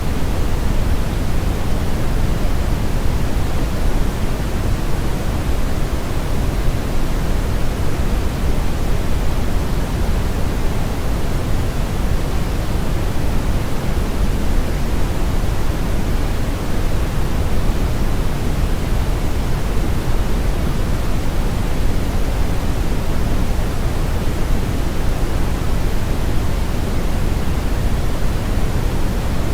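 Synthetic brown noise blended with white noise: a steady, unchanging hiss, strongest and deepest in the bass, with a thinner hiss on top.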